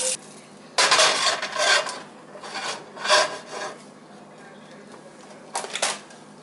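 Rasping scrapes and rubs of a nonstick pan as it is set down on an electric coil burner and wiped out inside with a gloved hand: a long stretch about a second in, another around three seconds, and a short scrape near the end.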